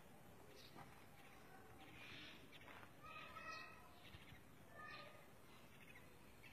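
Near silence, with a few faint, short high-pitched calls, the clearest about three seconds in and again near five seconds.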